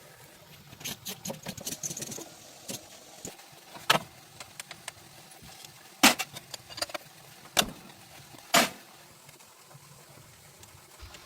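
Scattered clicks and knocks from hand work on engine parts: a run of small clicks, then four louder single knocks spaced a second or two apart.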